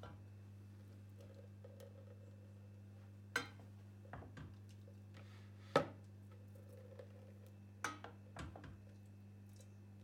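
A wooden spoon knocking against a stainless steel pot and a metal mesh strainer while lor cheese curds are ladled out to drain from the whey: several separate knocks, the loudest a little past the middle. A steady low hum runs underneath.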